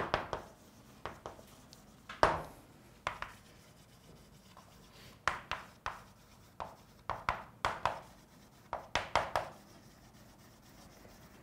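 Chalk writing on a chalkboard: irregular taps and short scrapes as each letter is formed, in small clusters with brief pauses, the sharpest stroke about two seconds in.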